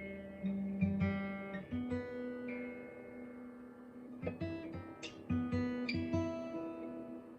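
Acoustic guitar played solo: strummed chords and plucked notes that ring out, with sharp strums about a second in and again around four and five seconds in.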